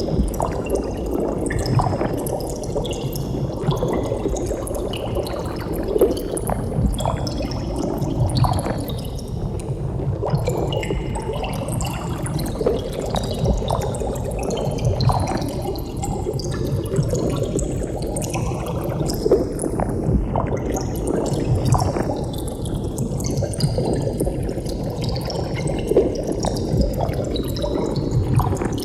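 Water bubbling steadily, a dense stream of small bubbles popping and gurgling.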